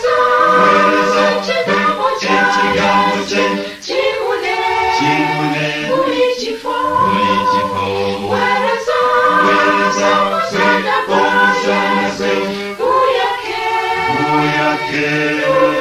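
A choir singing, the phrases held and then broken by short pauses.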